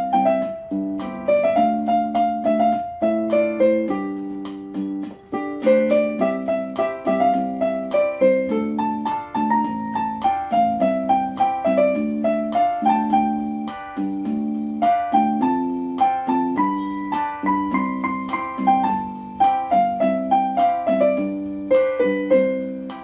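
Yamaha PSR-190 portable keyboard played with both hands: a melody in the right hand over repeated left-hand chords, each note striking and then dying away.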